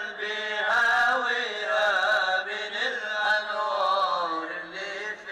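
A man chanting an Islamic devotional melody in long held notes that bend and waver.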